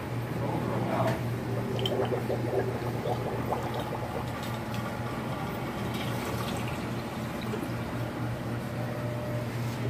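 Water running and trickling in shallow coral frag holding tanks, with scattered small drips and splashes over a steady low hum.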